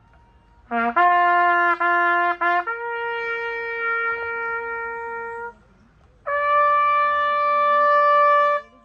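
A solo brass horn sounding a bugle call, played as a memorial salute. A short low note leads into several quick repeated notes on one pitch, then a long higher note, and after a short pause a still higher note held for about two seconds. The notes climb through the bugle's natural notes.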